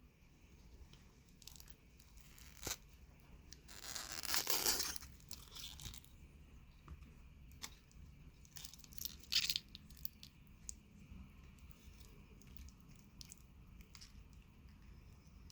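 Packaging being handled and opened: a rasping tear or crinkle of wrapping about four seconds in, a shorter one around nine seconds, and small clicks and handling noises between them.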